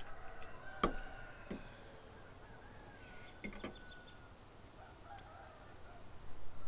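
A few sharp clicks of a metal fork against a ceramic plate, the loudest about a second in, with faint birdsong behind, including a quick run of high chirps midway.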